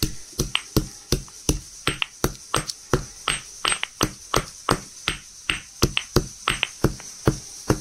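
Cardamom pods being pounded by hand: a steady run of sharp knocks, about four a second.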